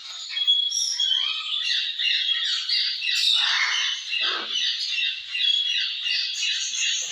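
Parrots squawking and chattering: many short overlapping calls, with a few louder harsh calls that fall in pitch about halfway through.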